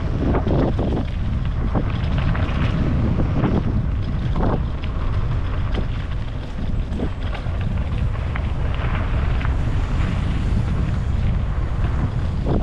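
Wind buffeting the microphone: a steady, loud low rumble with rushing noise and brief gusty flutters, as when recording on the move.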